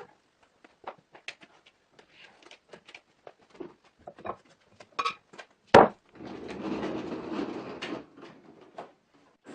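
A log being handled and turned over on wooden sawhorses: scattered wooden knocks and clatter, one heavy thump a little past halfway, then about two seconds of scraping.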